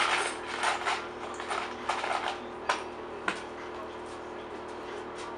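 Hard objects clattering and clinking as tools and hardware are handled on a workshop bench: a burst of rattling at the start, then scattered clicks and two sharp knocks about three seconds in, over a steady workshop hum.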